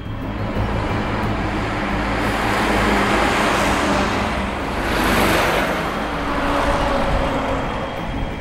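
Heavy truck traffic on a town street: a tanker semi-trailer truck passes close by, its diesel engine and tyre noise rising to a peak about five seconds in and then falling away over a steady low engine rumble.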